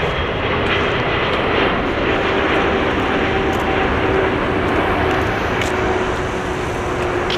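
Boeing 777 freighter's GE90 turbofan engines on final approach to landing: a loud, steady jet roar with a faint tone that slowly sinks in pitch as the aircraft passes.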